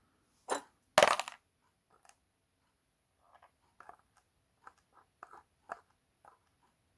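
Tiny metal pin-tumbler lock pins tipped onto a hard surface: a sharp click about half a second in, then a louder rattling clatter a second in. A run of faint light clicks and taps follows.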